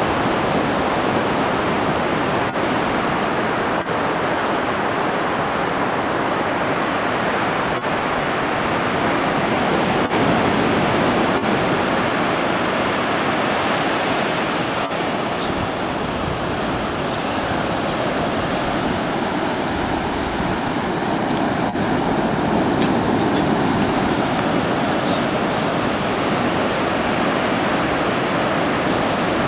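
Surf on a sandy beach: a steady rush of small waves breaking and washing up the shore.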